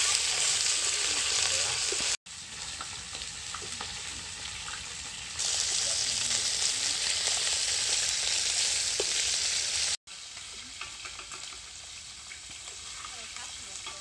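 Beef bones searing hard in hot oil in a cast-iron pot over a campfire, a steady loud sizzle with scrapes of a wooden spatula stirring them. The sizzle drops and comes back louder in turns, changing abruptly a few times.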